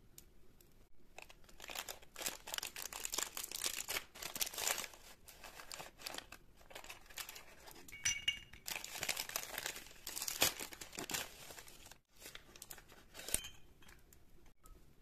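Plastic snack packaging crinkling as it is handled, with pretzel sticks clattering into small ceramic bowls, in long stretches of crackling broken by a few sharper clinks.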